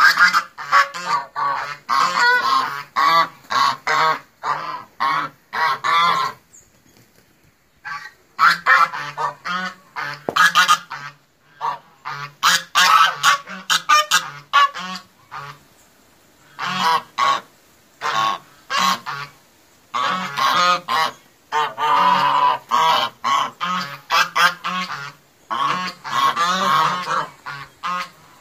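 White Chinese geese honking in loud, rapid runs of calls, broken by a couple of brief pauses.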